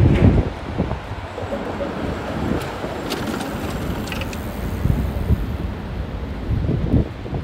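Street traffic at a busy city intersection: a steady low rumble of passing cars, loudest about the first half-second.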